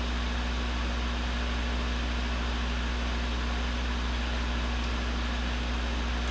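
Steady machine hum with an even hiss, unchanging throughout: a deep low drone with a fainter higher tone over it, typical of a fan or similar running machinery in a workshop.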